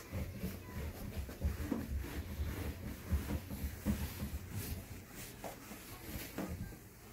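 A cloth rubbed back and forth over a car's painted hood, with dull low bumps from the panel and the hand-held phone. The wiping dies down about four and a half seconds in, leaving a few faint knocks.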